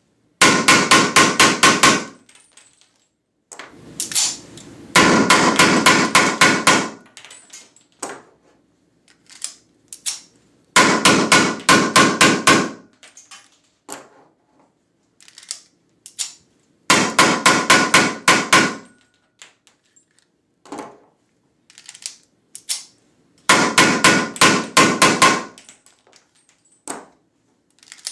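Weihrauch HW94 blank-firing pistol, its muzzle held in a foil-covered box, fired in five rapid strings of shots about five to six seconds apart. Short clicks fall between the strings.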